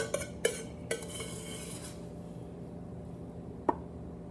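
Serving utensil knocking and scraping against a dish while red sauce is spooned onto a meatloaf: a few quick clinks in the first second, a short scrape, then one more ringing clink near the end.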